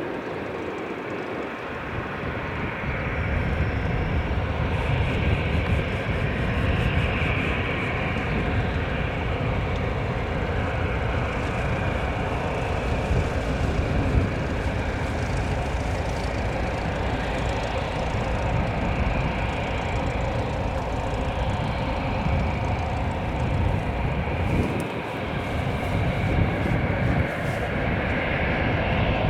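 Cessna 172's piston engine and propeller at takeoff power, a steady drone that grows louder over the first few seconds and then holds.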